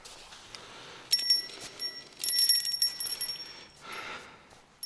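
Small bite bell on a bottom fishing rod jingling in two quick rattling bursts, about a second in and again for about a second in the middle. It is the signal of a fish taking the bait and pulling the line.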